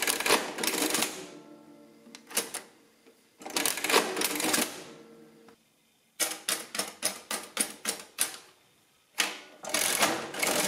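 Victor Series 2 adding machine being worked by hand: longer mechanical clattering bursts, with some ringing, of its lever-driven printing and adding mechanism, and in the middle a quick run of about a dozen key clicks as a number is entered on the keyboard.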